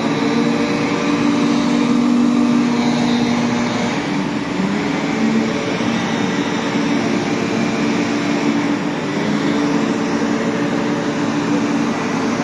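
Scania street-sweeper truck working: its engine and sweeping and suction gear give a steady mechanical drone with a hum that shifts slightly in pitch as it moves across the square.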